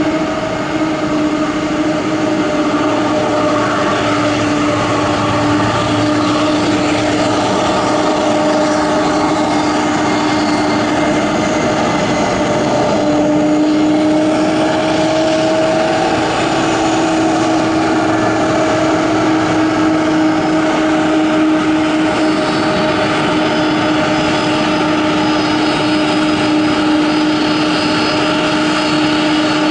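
Twin turbofan engines of a Boeing 767-300ER taxiing at low thrust: a steady jet whine and rumble with held tones, the pitch shifting slightly about halfway through.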